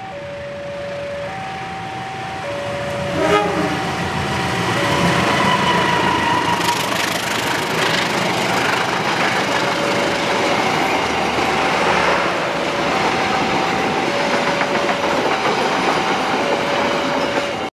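A GE CM20EMP (CC 206) diesel-electric locomotive approaches and passes close by hauling passenger coaches. After a sharp knock about three seconds in, the sound swells into a steady loud rumble of wheels on rails. Throughout, a two-tone warning alarm alternates between a lower and a higher note about once a second.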